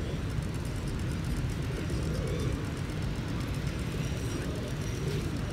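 Steady low rumble of outdoor city background noise, with no distinct events standing out.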